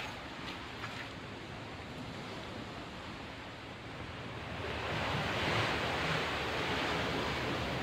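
Steady rushing noise aboard a ship, with a few light knocks in the first second. About five seconds in it grows louder and hissier.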